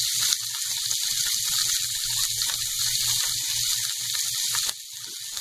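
Chopped onions, tomatoes, garlic and ginger frying in hot oil in a non-stick pot over high heat: a steady crackling sizzle that dips briefly near the end.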